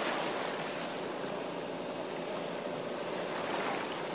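Steady outdoor rushing noise with a faint, even motor hum underneath, like a boat motor running on open water.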